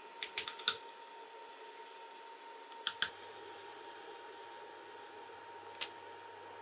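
Spoons clicking against a cooking pot and paste tub as soybean paste is added to the pot and stirred in: a quick run of sharp clicks at the start, two more about three seconds in and one near the end, over a faint steady hum. A low hum comes in about three seconds in.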